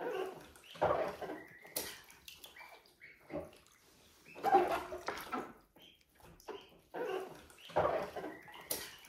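Water splashing in a plastic baby bath and a chocolate Labrador sniffing close to the tub, in short irregular bursts every second or two.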